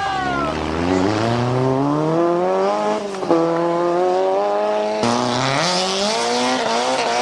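Rally car engines revving hard under acceleration, the pitch climbing steadily and then falling back. The sound breaks off abruptly twice as one car gives way to the next.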